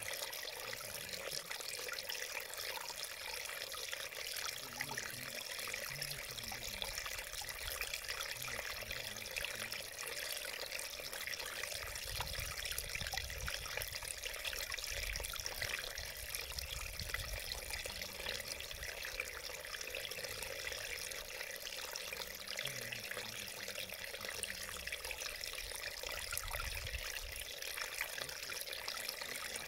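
Small mountain stream trickling and babbling over rocks, a steady, even rush of water.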